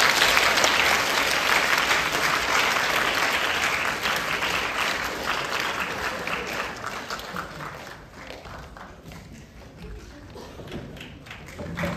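Audience applauding, loud at first, dying down after about eight seconds, then swelling again near the end.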